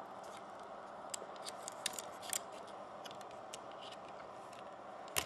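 Light clicks and taps of a BlackBerry Torch 9800 smartphone's small internal parts being handled as a flex cable is unclipped, several in a cluster and a sharper click near the end, over a steady background hiss.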